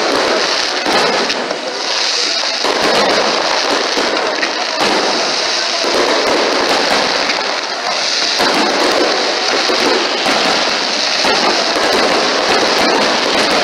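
Fireworks display: many aerial shells bursting and crackling at once in a dense, unbroken barrage.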